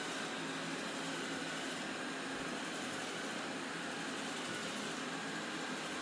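Robot vacuum cleaner running steadily as it moves across a tile floor: an even motor-and-fan whir with a hiss.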